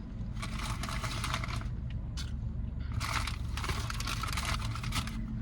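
Close-miked eating noises, a noisy crunching and rustling heard in two stretches, over the steady low hum of a car's idling engine.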